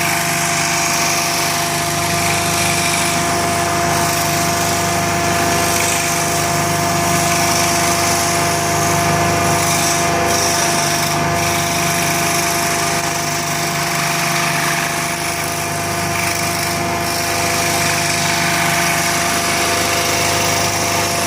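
Electric power tool running steadily, a constant motor hum and whine over a loud rushing noise, with no pause throughout.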